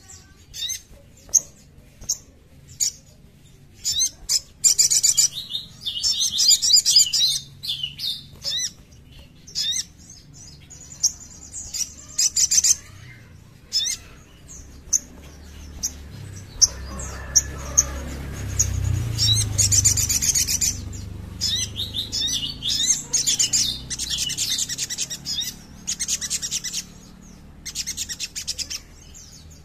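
A caged sunbird (sogon) calling: a string of sharp, high chirps, broken by several stretches of fast, high-pitched twittering song. A low rumble swells in the background around the middle.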